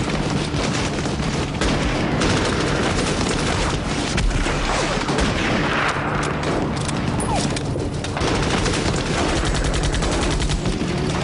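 Battle gunfire: dense, overlapping rifle and machine-gun shots with fast rattling runs, continuing without pause.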